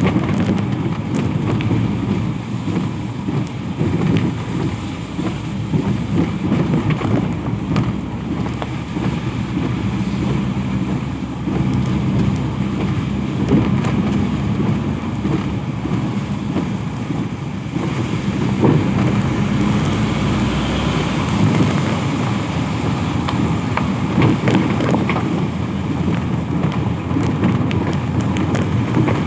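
Road traffic in the rain: a steady low rumble of vehicle engines and tyres on the wet road, with rain falling.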